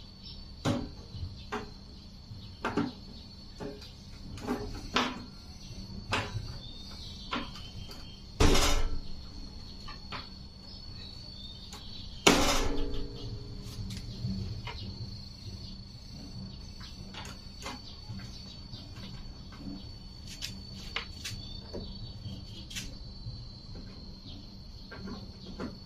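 Scattered clicks and knocks of tools and metal parts being handled during a workbench repair, with two louder knocks, about eight and twelve seconds in, the second ringing briefly.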